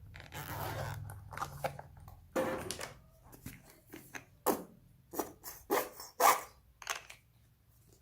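Slime being squeezed, stretched and pressed by hand, giving sticky crackles and a run of short sharp pops near the end.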